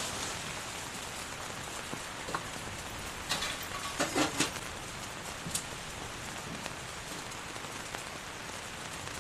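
Heavy rain falling steadily on a tent, with a few sharp taps and knocks about three to four and a half seconds in.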